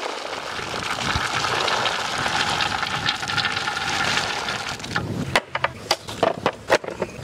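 Peanuts in their shells poured into a metal basin: a dense, continuous rattle for about five seconds, thinning to a few separate clicks as the last pods drop.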